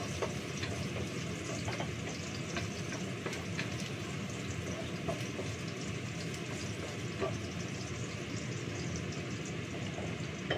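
Steady hiss of food cooking on the stove, with a few light clicks and clinks of kitchen utensils.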